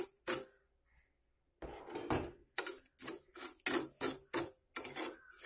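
A spoon scraping and knocking round a metal pot of sugar and water, stirring to dissolve the sugar: quick repeated strokes, about three a second, starting about a second and a half in after a brief silence.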